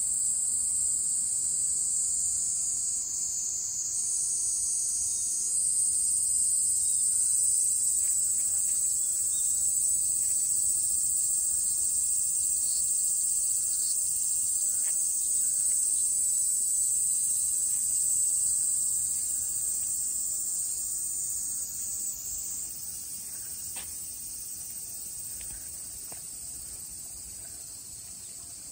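Chorus of cicadas: a loud, steady high-pitched shrill that eases off over the last several seconds.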